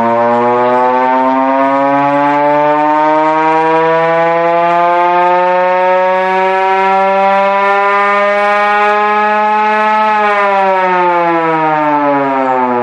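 1920s Federal Electric Type B single-head electric siren, run on reduced voltage, wailing loudly. Its pitch climbs slowly for about ten seconds, then begins to fall as the rotor winds down near the end.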